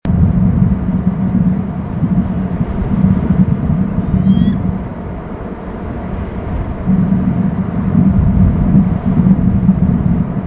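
Wind rumbling and buffeting on an outdoor microphone, easing off for a couple of seconds midway. A few faint, short high bird chirps come about four seconds in.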